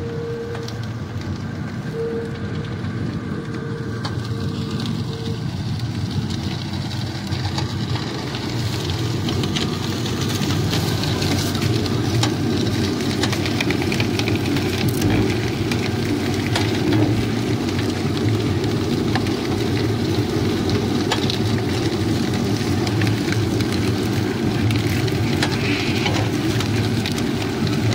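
Motorized sugarcane crusher running with a steady mechanical drone, getting louder over the first several seconds. Sharp crackles come in on top as cane stalks are crushed between the rollers.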